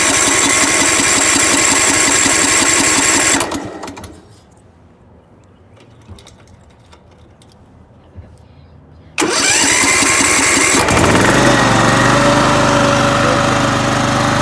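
Ariens riding mower's electric starter cranking the engine with a rapid rhythmic pulse and a rising whine for a few seconds, then stopping. After a pause of about five seconds it cranks again, and the engine catches and settles into steady running. The starter is getting power again now that the blown 20 amp fuse has been replaced.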